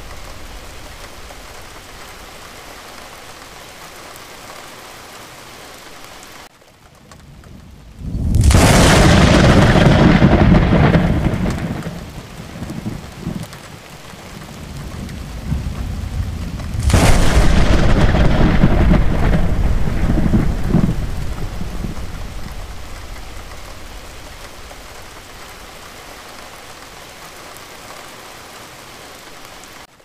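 Steady rain with two loud thunderclaps, one about eight seconds in and another about seventeen seconds in, each rumbling away over several seconds.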